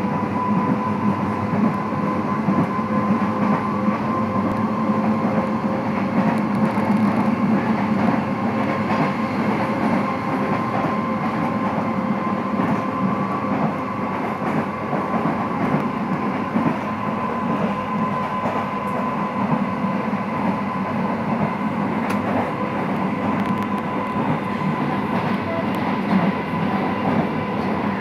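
Feve 3300-series narrow-gauge electric train running at speed, heard from inside the passenger car: a steady running rumble with a constant tone held above it.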